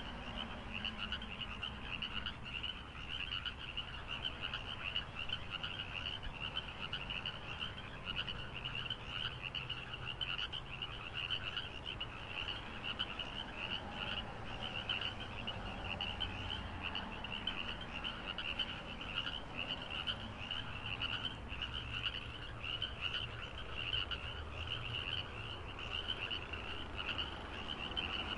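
A chorus of frogs calling continuously in a rapid, pulsing trill, with a low rumble underneath.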